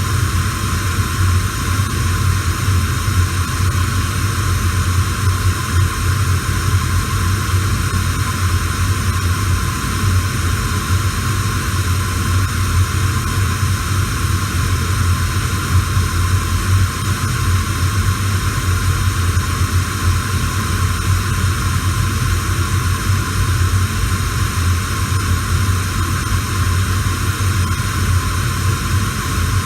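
Radio static: a steady, unbroken hiss with a low hum underneath.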